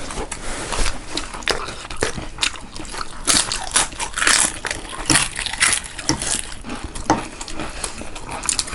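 Close-miked chewing and crunching of food, a run of irregular bites and mouth sounds.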